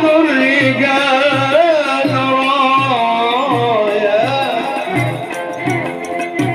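A male munshid sings a Sufi religious ode into a microphone in a wavering, ornamented line over a sustained drone, with a low drumbeat about every three quarters of a second and the light ticking of small brass hand cymbals.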